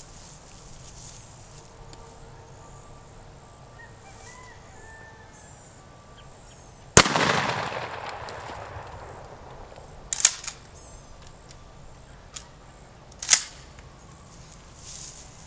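A single shotgun blast of 9-pellet 00 buckshot about seven seconds in, its report echoing and fading away over about a second and a half. Two shorter, sharp clacks follow a few seconds apart.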